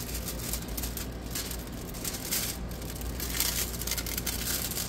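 Clear plastic protective film on a diamond painting canvas crinkling and rustling as it is smoothed flat by hand, in irregular crackles.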